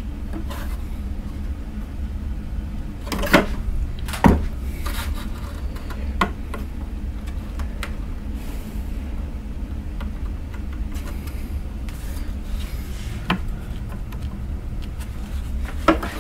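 Steady low background hum, with a few light knocks and taps, about five in all, as hands press and shift a hinged door panel against a model airplane's fuselage while its glue sets.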